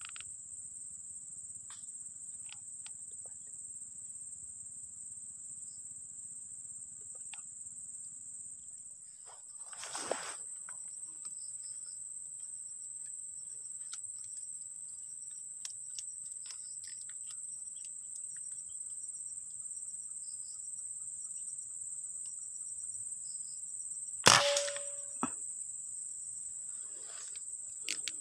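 Steady, high-pitched drone of insects, broken about 24 seconds in by a single sharp shot from a PCP air rifle with a brief ringing after it. This is the shot that went wrong through a faulty moderator (silencer).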